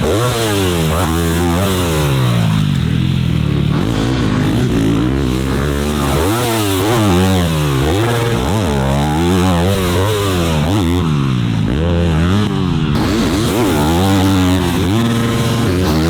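Dirt bike engines being ridden hard around a supercross track: the engine note climbs and drops over and over as the throttle is opened and shut, with the rising and falling notes at times crossing one another.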